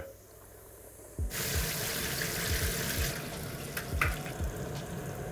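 Chicken tenders frying in hot oil at 165 °C: about a second in, a steady sizzle starts, with low bubbling pops underneath.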